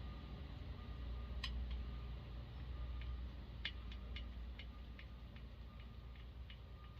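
Light metallic clicks of a quarter-inch end wrench working a small bolt on a chainsaw: one click about a second and a half in, then a string of irregular clicks, two or three a second, from about halfway on, over a steady low hum.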